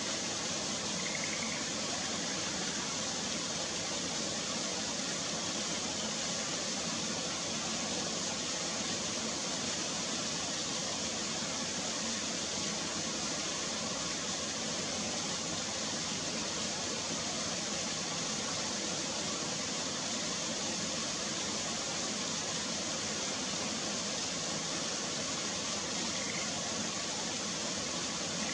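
Steady, even rushing hiss with no change in level, with two faint short sounds about a second in and near the end.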